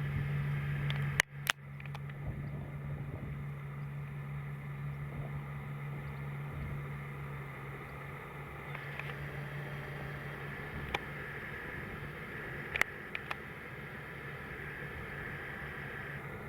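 Farm machinery engine running steadily with a low hum, which weakens after a couple of sharp clicks about a second in; a higher steady whine joins it later on, with a few more clicks.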